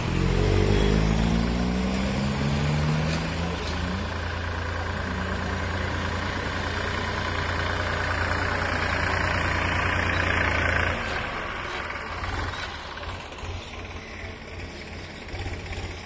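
Diesel farm tractor engine running while ploughing, its note shifting in the first few seconds. It grows louder as the tractor comes close, drops off suddenly about eleven seconds in, and runs on lower and more unevenly as it moves away.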